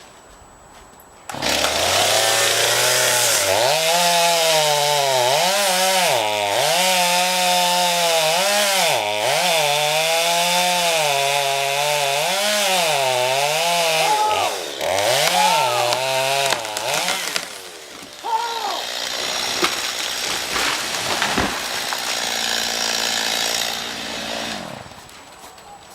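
Chainsaw starts about a second and a half in and cuts into a tree being felled, its engine speed repeatedly dipping and recovering under load for about fifteen seconds. It then runs quieter and fades out a little before the end.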